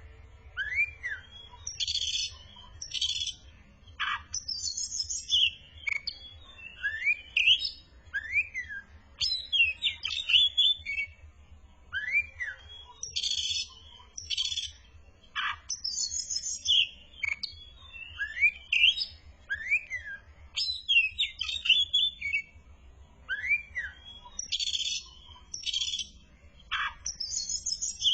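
Oriental magpie-robin (kacer) singing a varied song of clear rising whistles, short high bursts and quick chattering notes. The same run of phrases repeats about every 11 seconds, over a faint low hum.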